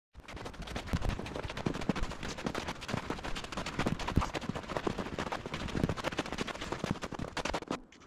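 Footsteps crunching in packed snow, sped up into a fast, dense rattle of crunches that briefly drops out near the end.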